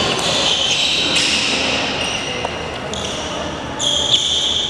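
Sports shoes squeaking on a wooden hall floor in short, overlapping high squeaks, with a few sharp knocks of play from other badminton courts, the strongest about four seconds in.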